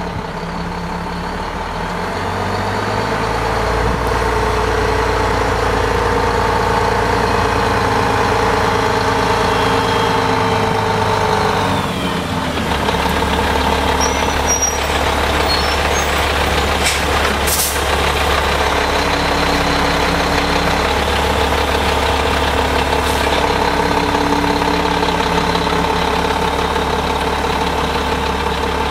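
Renault Magnum lorry's diesel engine running steadily, its note swelling a few seconds in, sinking slowly, then settling into a lower steady idle about twelve seconds in. A few brief sharp noises stand out a little past the middle.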